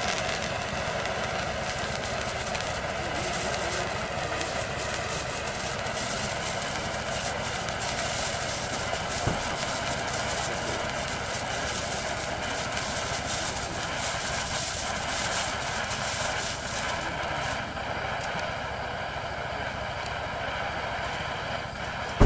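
Handheld toy fountain firework burning with a steady hiss and a dense crackle of sparks. The high hiss eases somewhat in the last few seconds, and there is one sharp crack at the very end.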